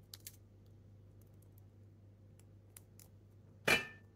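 Brittle sweet tamarind pod shells being cracked and peeled by hand: a few faint clicks, then one sharper crack near the end with a brief ring after it, over a faint steady hum.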